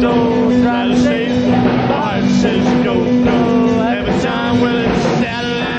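A rock and roll band playing live, with a singer, electric guitar and drums, on a 1960 club recording with a dull top end.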